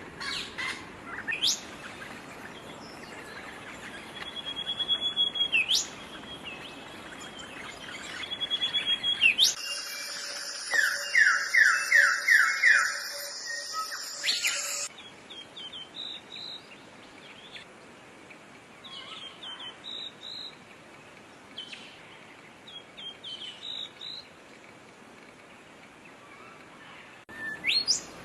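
Songbirds chirping and calling in short notes and quick glides. The background changes abruptly twice as one recording cuts to another, and a run of rapid repeated notes comes about halfway through.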